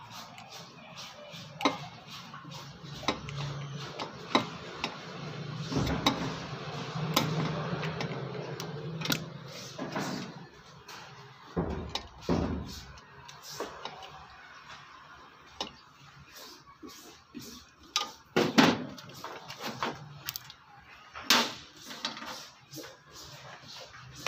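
Irregular clicks and knocks of pliers and a screwdriver working on the wiring terminals inside an electric rice cooker's metal base, the sharpest knocks a few seconds before the end.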